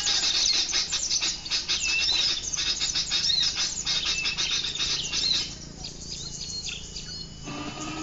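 Bird-call lure recording played through a small speaker to draw birds in: dense, rapid chirping and whistled notes that stop abruptly about five seconds in. Near the end a different sound starts, as the lure track changes.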